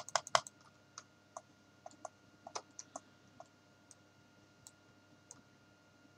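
Computer mouse button clicked several times in quick succession at the start, then fainter single clicks every half second or so.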